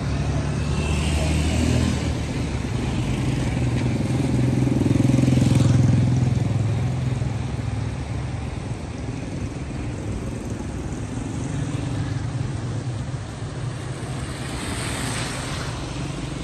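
Motor vehicle engines, motorcycles among them, running on the barrage road: a low engine hum that swells about five seconds in and then eases off, over a steady rushing noise.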